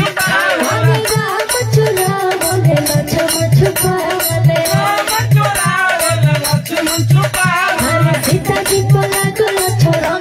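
A woman singing a Bhojpuri folk wedding song (dehati vivah geet) into a microphone over percussion that keeps a steady beat of low drum strokes, about two a second.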